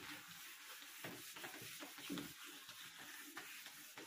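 Bare hand wiping marker writing off a whiteboard: a faint, uneven rubbing hiss that comes in strokes as the palm sweeps across the board.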